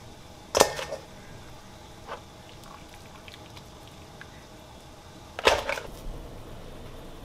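Metal tongs clattering against a pot and bowl twice, a few seconds apart, each a sharp knock with a quick rattle after it, as cooked crabs are lifted out of boiling water. A faint steady sound of the pot boiling runs underneath.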